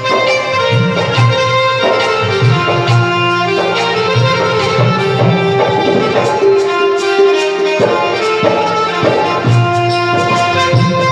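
Instrumental Indian devotional tune: a held, reedy melody line over a steady hand-drum beat, with frequent small percussive ticks.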